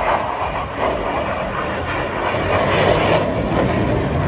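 Jet aircraft flying past, a steady rushing engine noise.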